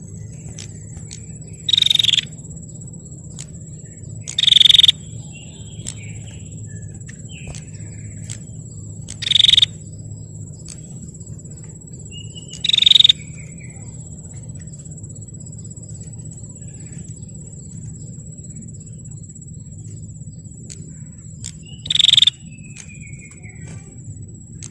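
Female prenjak (prinia) giving loud, short rattling call bursts, five of them at irregular intervals, each about half a second long, with faint short chirps in between. A thin, steady high-pitched tone runs throughout.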